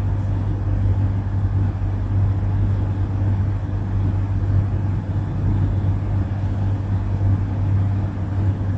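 Steady low hum with no breaks or changes.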